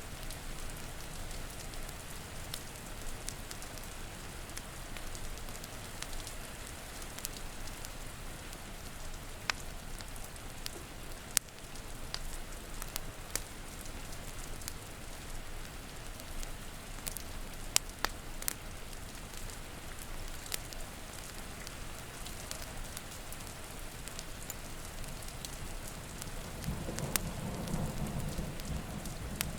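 Steady rain with scattered sharp pops and crackles from a wood fire. A low rumble of thunder starts building near the end.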